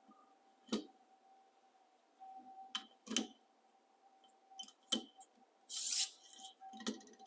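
Hand sharpening of a knife on a guided stone sharpener: a handful of sharp clicks and knocks as the stone arm and blade are handled, and one brief rasping stroke of the stone along the edge a little before the end, over a faint steady hum.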